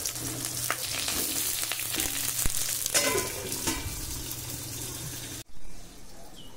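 Banana-leaf parcels of hilsa (ilish paturi) sizzling as they fry in hot mustard oil in a wok, with a sharp click now and then. The sizzle cuts off suddenly about five and a half seconds in.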